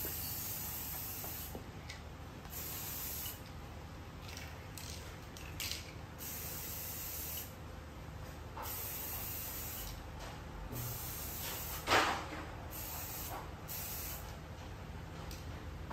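Aerosol spray can spraying clear coat onto motorcycle fairing parts, a hiss in repeated bursts with short gaps. A sharp knock about twelve seconds in.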